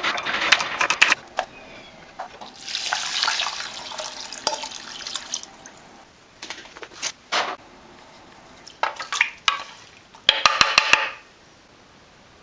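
Knife chopping celery on a wooden cutting board with quick sharp taps, then a few seconds of water pouring into a speckled enamel pot. Later come scattered handling clicks and a short burst of clatter.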